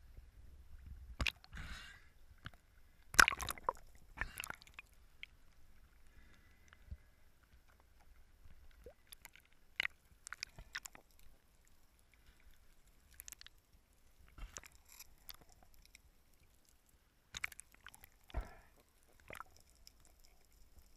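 Water sloshing and gurgling around a camera at and just below the surface, with scattered muffled knocks and clicks underwater; the loudest, a sharp knock, comes about three seconds in.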